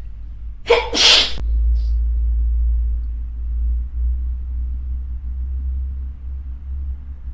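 A person sneezing once about a second in: a short intake, then a loud explosive blast. A steady low rumble runs underneath.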